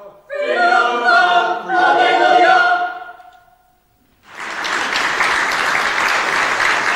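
A choir singing, ending on a held note that fades out about three seconds in; after a moment's pause, applause starts and continues.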